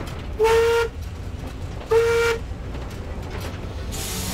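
Steam locomotive whistle sounding two short blasts of a single steady note, about a second and a half apart, over the low running rumble of the train.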